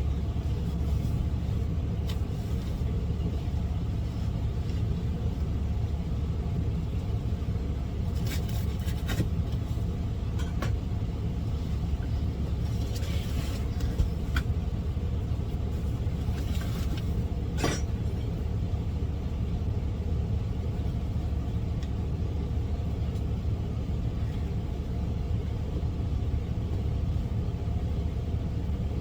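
Semi truck's diesel engine idling with a steady low rumble. A few short scrapes and clicks come through it from a cardboard mattress box being cut open and handled.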